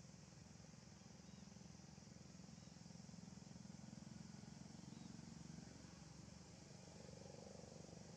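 Near silence: a faint, steady low hum of outdoor background.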